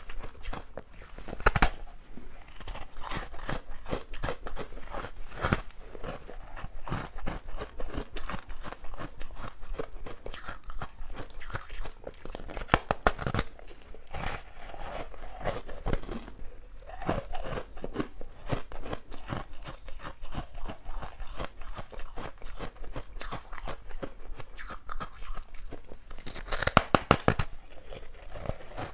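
Close-miked biting and chewing of frozen basil-seed ice: a steady run of crunches and crackles, with louder bites about a second and a half in, near five seconds, around thirteen seconds and near the end.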